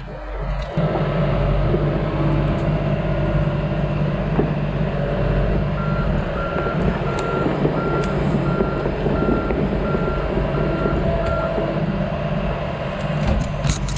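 Komatsu PC88 excavator's diesel engine running steadily under work, picking up about a second in, with its travel alarm giving about ten short, evenly spaced beeps in the middle of the stretch.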